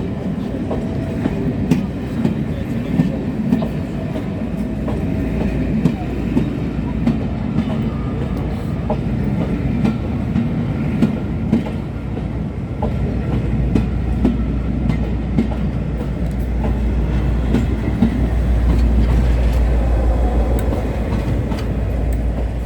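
A train running on rails, with repeated clicks of wheels over rail joints and a steady rumble that swells in the second half.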